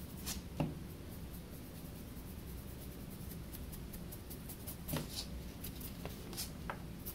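Faint scratchy strokes of a paintbrush working acrylic paint, with a few light clicks and taps as the brush and the small wooden figure are handled, over a low steady room hum.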